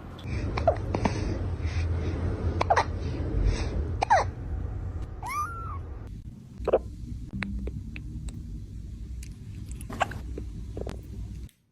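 A cat hiccuping: short, sharp hics coming irregularly every second or two, with one brief squeaky call about halfway. The owner puts the hiccups down to the cat eating its food too fast.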